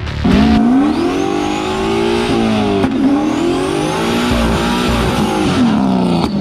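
Corvette V8 held at high revs during a burnout on drag slicks, its pitch dipping and climbing again a couple of times, over the hiss of the spinning rear tyres.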